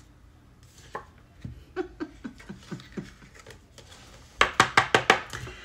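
A tarot deck being shuffled by hand: scattered soft taps and flicks of cards, then a quick run of sharp card clicks about four and a half seconds in.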